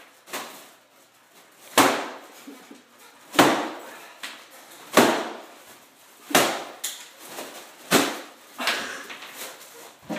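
Red foil (mylar) balloon being hit hard by hand, again and again: a run of sharp slaps with a short crinkly ring, the loudest about every one and a half seconds, with weaker hits between them toward the end. The balloon takes the blows without bursting.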